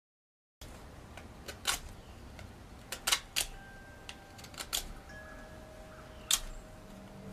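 After about half a second of silence, low room noise with several sharp, irregular clicks and taps, spaced unevenly with the loudest about three seconds in.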